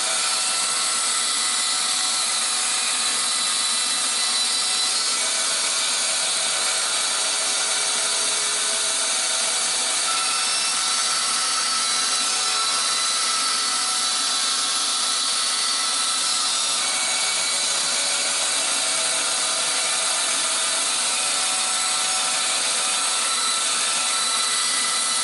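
Woodworking power tool running steadily while rounding over the corners and cleaning up the edge of a small plywood piece.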